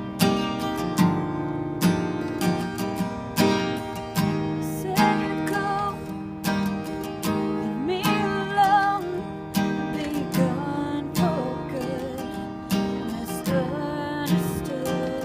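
Acoustic guitar strumming chords in a steady rhythm, with a strong strum roughly every second, playing a song.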